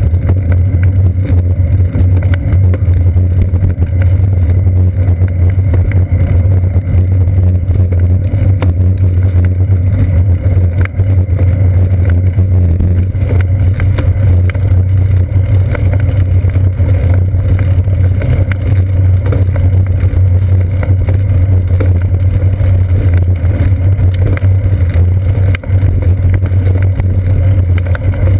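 Steady low rumble of riding noise from a seat-post-mounted GoPro Hero 2 on a moving bicycle: wind and road vibration over wet pavement.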